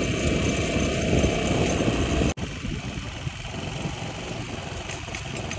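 Steady low rumble of a running vehicle. It cuts out abruptly a little over two seconds in, at an edit, and resumes somewhat quieter.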